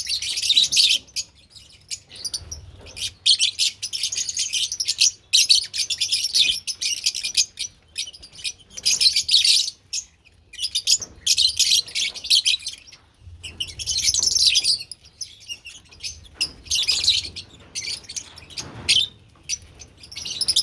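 Lovebirds chirping in high-pitched bursts of about a second each, with short pauses between.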